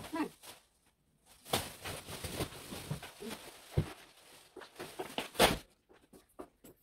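Irregular rustling, scraping and light knocks of household items being handled and moved during cleaning. There is a sharp knock near four seconds and a louder one a little after five seconds.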